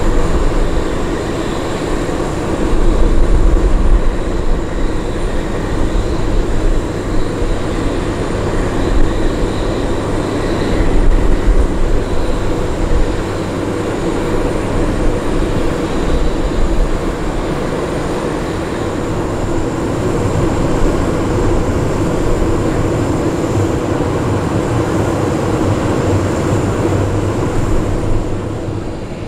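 Steady aircraft turbine noise on an airport apron: a constant whine over a low rumble that swells and fades, dropping off near the end.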